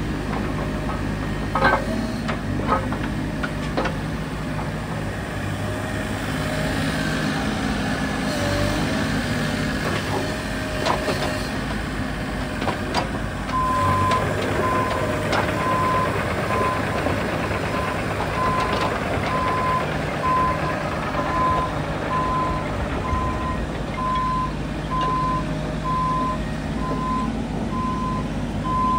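Bobcat E50 mini excavator's 48 hp diesel engine running under load as the boom and bucket are worked, with occasional metallic clanks. About halfway through the machine's travel alarm starts beeping in a steady series as it tracks.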